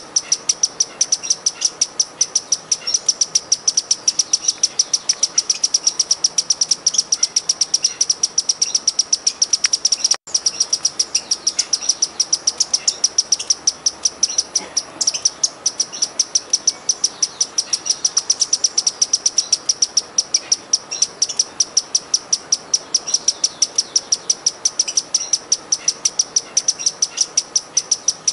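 Sparkling violetear hummingbird singing: a rapid, even series of high, sharp chips, about five a second, repeated without pause, with a brief break about ten seconds in.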